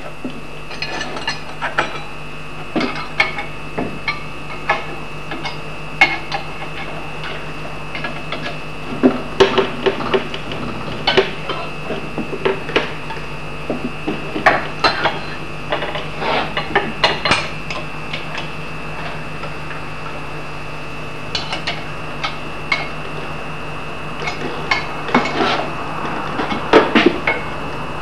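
Irregular metallic clinks and knocks of steel parts of an axe filing jig and the axe head clamped in it as they are handled and adjusted, in short clusters separated by pauses, over a steady low hum.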